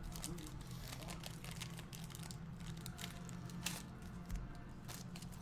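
Faint crinkling and rustling of trading-card packaging, a string of small irregular crackles, over a steady low electrical hum.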